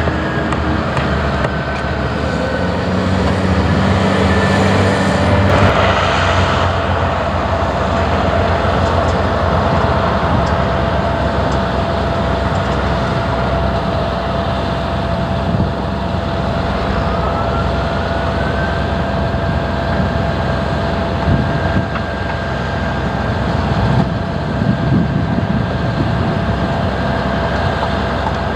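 Caterpillar construction machine's diesel engine running under load, with steady high whines over it and one whine rising in pitch past the middle.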